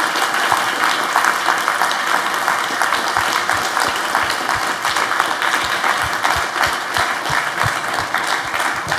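Audience applauding: many hands clapping in a steady round.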